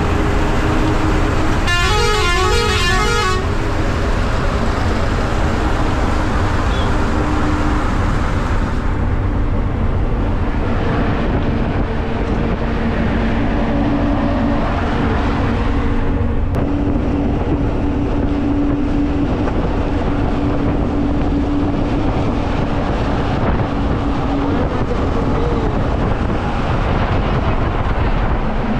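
A truck running at highway speed, with steady engine and road noise. About two seconds in, a truck horn plays a quick run of several notes for about a second and a half.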